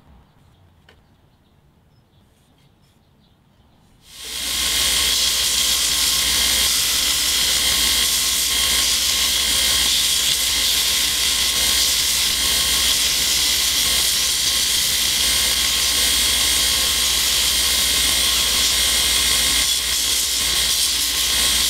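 Quiet for about four seconds, then a belt grinder comes in suddenly and runs steadily, its abrasive belt sanding curly maple handle scales on a knife tang: an even hiss with a constant whine.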